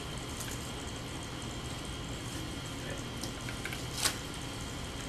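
Classroom room tone: a steady hiss and hum with a faint high whine, a few light ticks, and one sharper click about four seconds in.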